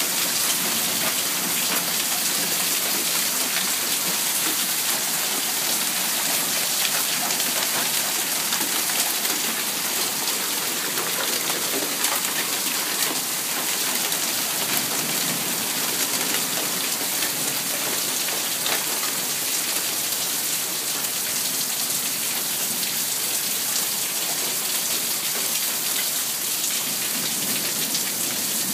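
Golf-ball-sized hail pelting down in a hailstorm: a dense, steady clatter of impacts with many sharper single hits standing out.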